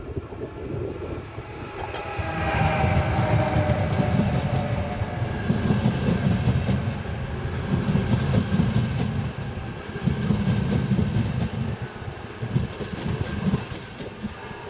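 Train running past on the rails: a loud low rumble with rhythmic clatter of the wheels over the rail joints. It grows louder about two seconds in, with a brief high tone at that point.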